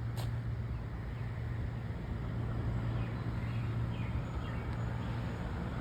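Outdoor ambience: a steady low hum under a wash of noise, with a few faint bird chirps scattered through it.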